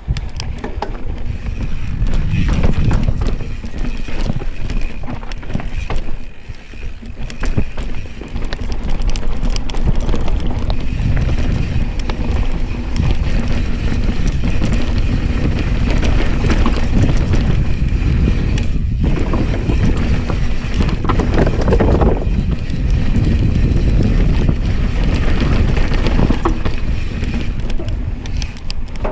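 Wind rushing over the camera microphone and a mountain bike's knobby tyres rumbling over dirt and loose rock on a fast downhill descent. Frequent short rattles and knocks come from the bike and stones underneath it, easing briefly about six seconds in.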